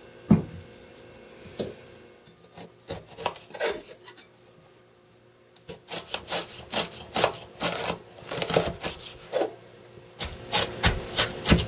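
Kitchen knife chopping fresh ginger on a wooden cutting board. There is a sharp knock near the start and a few scattered cuts, then a short lull, then a long run of quick chopping strokes through the second half as the ginger is minced.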